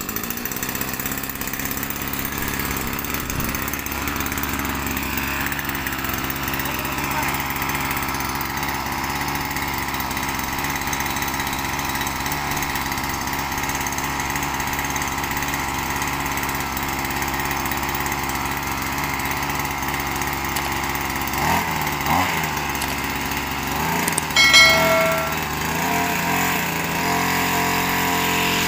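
Small two-stroke engine of a Steel Power two-wheeled grass trimmer running steadily just after starting. Near the end its speed changes a few times, briefly rising and falling, before settling to a steady, more even note.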